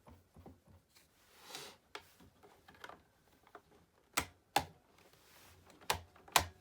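Plastic parts of a Roomba 780 robot vacuum being handled during disassembly: scattered light clicks and taps, a brief rustle, then four sharp clicks in the second half.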